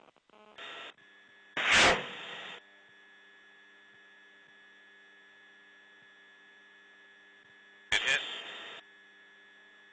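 Steady electrical hum on the helicopter's gun-camera audio track. It is broken by a brief burst of noise just under a second in, a much louder burst of noise about two seconds in, and another burst about eight seconds in.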